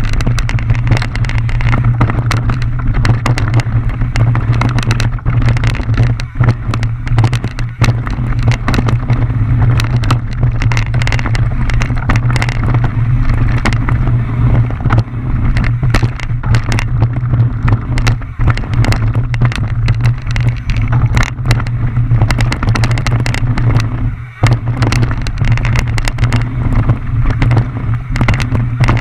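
Mountain bike ridden fast down a rough dirt trail: a loud, steady rumble of wind and tyres on the mounted camera's microphone, with constant rattles and knocks from the bike bouncing over roots and rocks.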